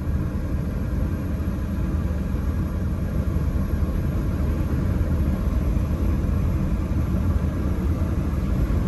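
Steady low rumble of a car driving along a flooded road, heard from inside the cabin.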